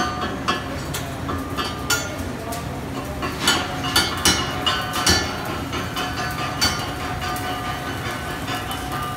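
Welding-shop clatter: repeated sharp metal knocks and clinks, like hammers striking steel, over a steady background din, with the loudest knocks in the middle.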